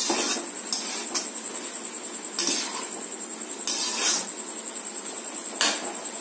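Steel slotted spoon scraping and clinking against a metal pot while chopped snake gourd is stirred, several short strokes at irregular intervals.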